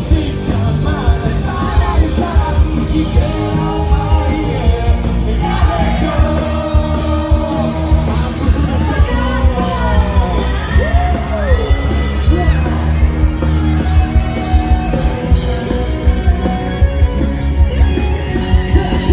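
Live rock band playing loudly, with steady pounding drums and a singer singing and yelling over the band.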